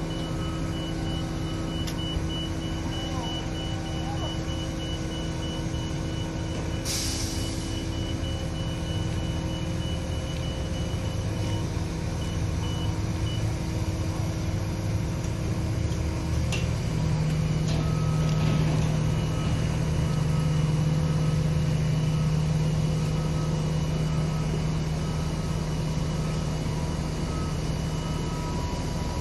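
Mobile crane truck's engine running steadily, growing louder from about 17 seconds in, with an intermittent electronic warning beeper sounding over it. A short hiss about seven seconds in.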